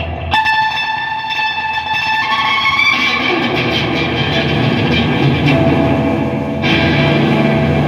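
Electric guitar strummed through an amplifier, chords ringing out, with new chords struck about a third of a second in and again near the end.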